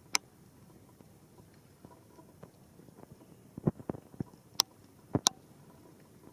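Large water drops falling from the rain, tapping irregularly over a faint steady hiss, with a quick run of louder taps in the second half.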